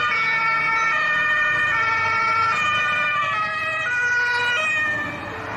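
Police car sirens sounding, steady tones that switch back and forth between pitches in steps, with more than one siren overlapping, as in a German two-tone siren.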